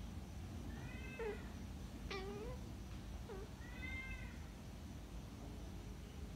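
Domestic cat meowing: a few short meows, about a second in, just after two seconds and around four seconds in.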